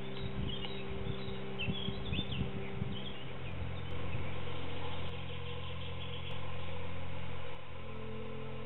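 Small birds give short high chirps during the first three seconds over a steady low hum. A low mechanical hum then sets in, swelling twice for about a second each time and starting and stopping abruptly.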